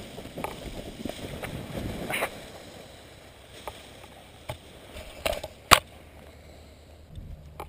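Paraglider risers and lines being handled, with rustling and a few sharp clicks of the metal hardware, the sharpest about two-thirds of the way in.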